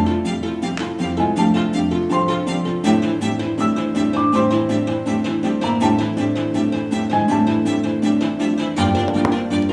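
Background music: a melody of changing notes over a steady beat.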